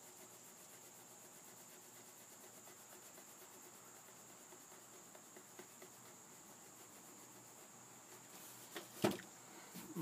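Faint, steady cricket chirping, a high, evenly pulsing trill. About nine seconds in comes one sharp knock, with a smaller one near the end.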